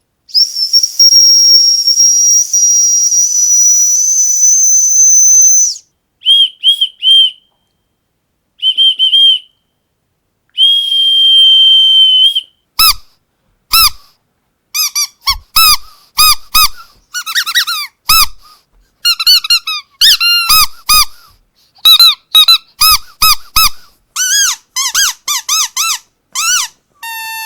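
High-pitched dog whistle blown in a long steady blast with some breath hiss, then a lower whistle in short toots and one long blast. From about halfway a rubber squeaky dog toy is squeezed over and over in quick, uneven squeaks.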